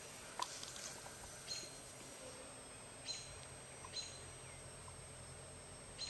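Faint outdoor ambience: three short, high chirps, a second or more apart, over a steady low hiss.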